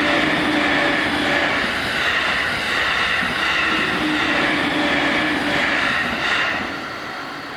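Train passing over a level crossing: loud wheel-on-rail noise that fades away about six to seven seconds in. The crossing's JR-standard alarm bell rings in repeated tones underneath.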